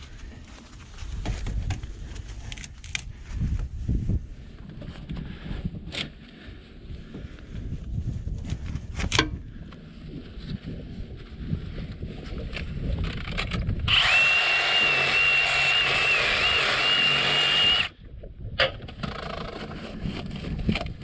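Metal parts being handled with scattered knocks and clatters, then a power tool runs steadily with a high whine for about four seconds and stops abruptly.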